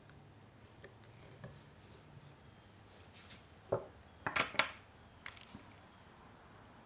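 A few light metallic clinks and knocks, small metal tools or hardware being handled on a workbench, bunched together about four seconds in, one with a brief high ring.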